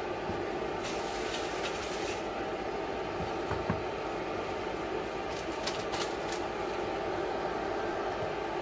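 Steady hum of a countertop electric burner running on low under a lidded frying pan, with a few light knocks as the glass lid is settled on the pan.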